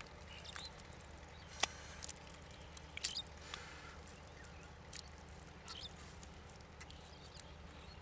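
Hands scooping wet mud from a hole, making scattered small squelches and clicks, with a few faint short chirps.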